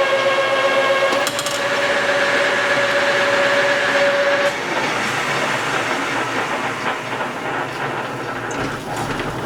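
Metal lathe taking a roughing cut on a steel shaft: a steady pitched whine that shifts slightly a little over a second in and stops about four and a half seconds in. The lathe then runs on with irregular ticks and rattles.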